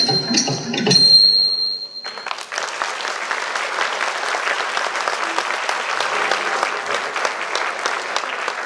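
Bharatanatyam accompaniment music ends about two seconds in on a high ringing note, then the audience applauds steadily.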